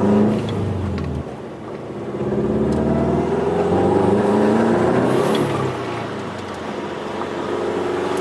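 2002 Subaru WRX's turbocharged flat-four engine accelerating. Its pitch climbs, drops back and climbs again several times.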